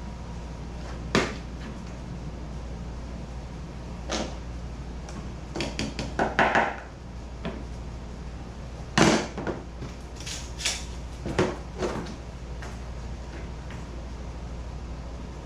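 Scattered knocks and clatter of hand tools and foot-brace hardware being handled and set against the kayak, a dozen or so irregular taps with a busier patch in the middle and the loudest knock about two-thirds through, over a steady low hum.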